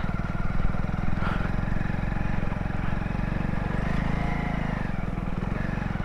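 Motorcycle engine running steadily as the bike is ridden, a fast even beat; its note shifts slightly about four seconds in.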